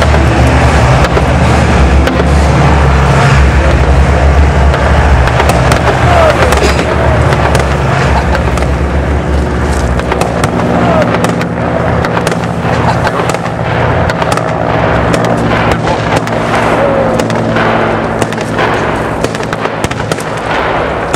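Deep, steady rumble of armoured vehicle engines close by, which eases off about halfway through. CV90 infantry fighting vehicles' autocannons then fire rapid, irregular shots over the running engines.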